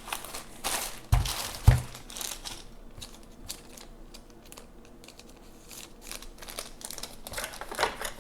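Keyboard box and its packaging being handled and opened: crinkling and rustling, with two heavy thumps a little over a second in, then scattered light clicks and more rustling near the end.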